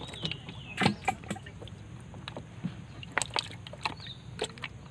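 Light water sloshing with scattered small clicks and taps, and a faint high whistle near the start and again near the end.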